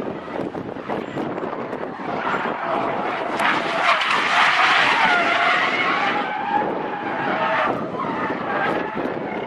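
Car tyres squealing through a drift: a wavering screech that builds about two seconds in, is loudest around the middle and dies away about eight seconds in, over steady road and wind noise.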